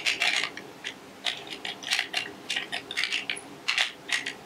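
Steel parts of a disassembled CZ 52 pistol's slide assembly being worked by hand, giving a quick irregular series of sharp metallic clicks and clinks.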